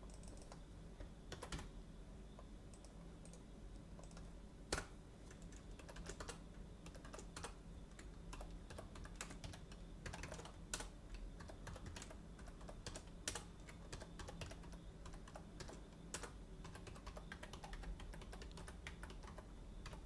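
Typing on a computer keyboard: irregular, faint key clicks with a few sharper, louder strokes, over a steady low hum.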